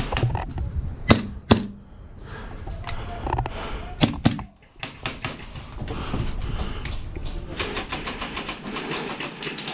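Airsoft gun firing: two sharp shots about a second in, two more around four seconds, then a quick run of clicking shots near the end.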